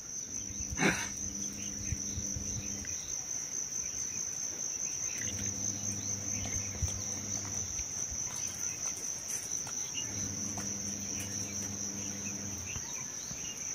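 Steady high-pitched insect trill running without a break. Under it, a low steady hum comes and goes three times, each lasting about three seconds.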